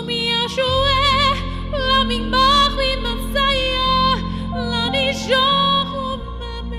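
Woman singing a slow melody with wide vibrato over soft, sustained piano accompaniment.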